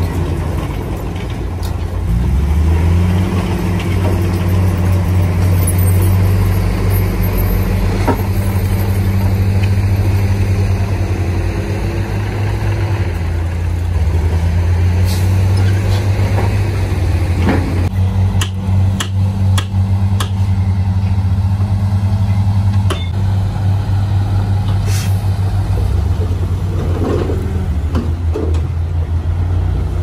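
Heavy diesel dump truck engine running while the truck tips its load of dirt. Its pitch steps up and down a few times, and a cluster of short sharp clicks comes a little past the middle.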